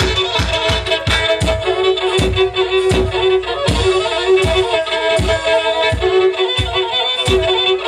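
Black Sea kemençe, the small three-string bowed fiddle, playing a fast, repetitive horon dance tune over a steady low beat of about four strokes a second.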